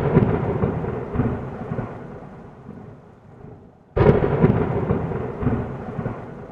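Thunderclap used as an intro sound effect: a sudden crack followed by a rolling rumble that fades away, then the same clap again about four seconds in.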